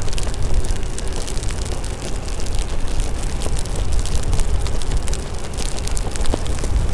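Wind on the microphone while riding an electric unicycle through rain: a steady low rumble with an even hiss, peppered with many sharp ticks of raindrops and wet spray.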